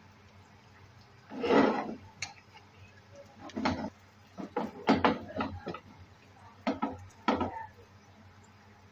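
Cooking utensil scraping and tapping against a frying pan, in several separate short scrapes and a cluster of quick clicks.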